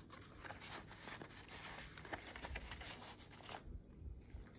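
Faint rustling and sliding of paper and card as a tag and envelope are handled and slid into a paper pocket of a handmade junk journal, with small clicks and scrapes. It dies down about three and a half seconds in.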